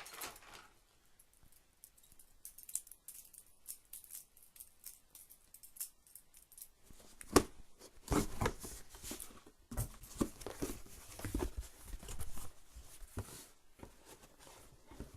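A mailed package being opened by hand: irregular scraping, tearing and crinkling of the packaging, sparse at first and much busier in the second half, with one sharp knock about seven seconds in.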